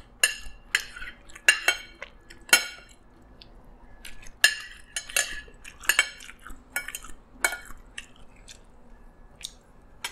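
Metal spoon and fork clinking and scraping against a plate in irregular sharp clinks with short pauses between, sparser in the last couple of seconds.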